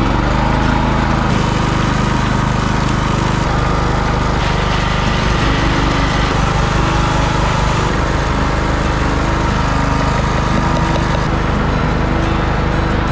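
Small petrol generator engine running steadily just after being pull-started.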